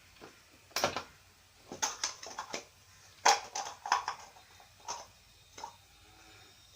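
Plastic clicks and knocks as the diffuser of an 18 W LED bulb is fitted and pressed onto its housing: a string of short, sharp clicks spread over several seconds, the loudest about three seconds in.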